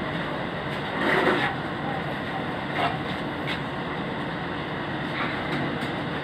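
Steady background noise, like a running machine or fan, with a few light clicks and a brief louder sound about a second in.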